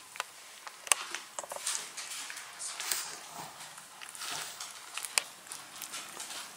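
Newborn Tibetan terrier puppies squirming against each other on a whelping pad: soft rustling with scattered small clicks and scuffs, and small puppy noises now and then.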